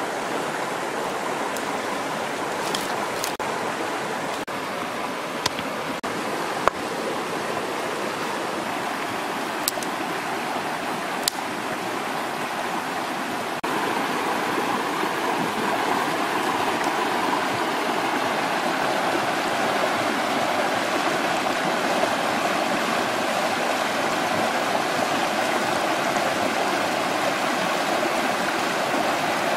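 Shallow rocky stream rushing over stones, a steady water noise that steps up in loudness about halfway through. A few faint sharp high ticks come in the first half.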